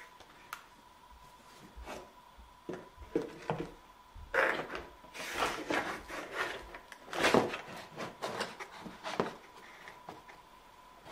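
Cardboard tray scraping and knocking against a wooden easel's ledge as it is pushed and fitted into place. A run of rubs and light knocks, the loudest scrapes about four and a half and seven seconds in.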